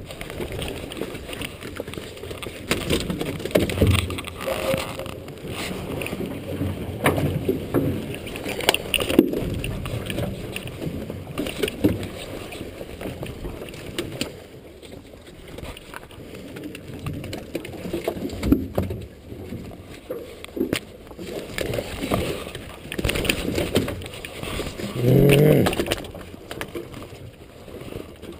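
Irregular knocks, thumps and splashes of a gillnet being hauled over the side of a boat and sockeye salmon picked out of it, muffled by the camera's waterproof case.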